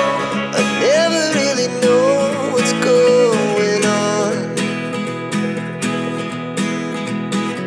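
Background music with guitar and a steady beat under a gliding melody line.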